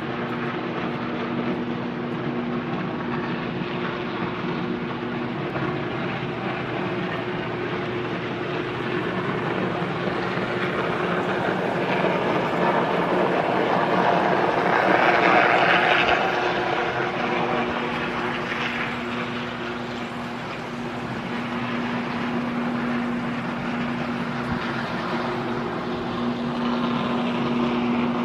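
A sustained electrical arc at a failed substation transformer: a steady, loud roaring buzz with a constant hum under it. It swells loudest about halfway through, eases, then builds again near the end.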